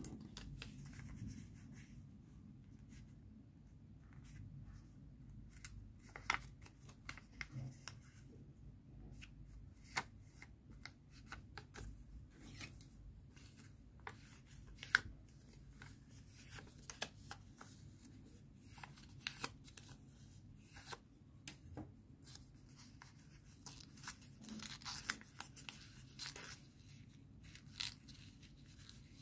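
Origami paper being folded and creased by hand: faint, irregular crinkling and rustling with scattered sharp clicks as folds are pressed, over a steady low hum.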